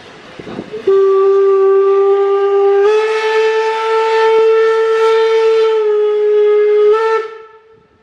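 Steam locomotive whistle blowing one long blast of about six seconds, a single steady note that steps up slightly and grows fuller partway through, then cuts off.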